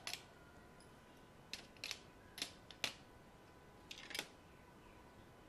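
Scattered light clicks and taps as small precision screwdrivers are picked up and handled in their plastic case.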